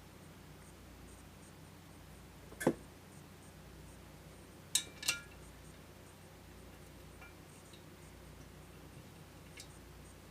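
Sharp metal clinks of small hard parts knocking together: one about a quarter of the way in, then two close together near the middle, and a faint tick near the end.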